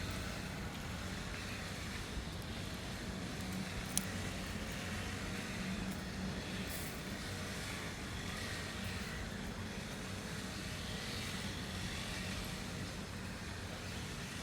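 Lawn mower engine running steadily, a continuous low hum, with one sharp click about four seconds in.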